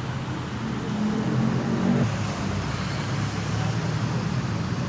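Benelli TRK 502X's parallel-twin engine running steadily, rising slightly in pitch and level about a second in and settling back about two seconds in.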